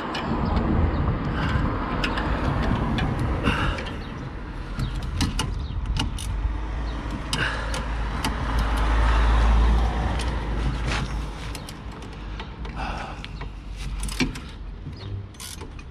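Road traffic going by, a low rumble that swells to its loudest about halfway through and then fades. Scattered light metallic clicks of a spanner and a ratchet with an Allen bit tightening the nut of a front anti-roll bar drop link.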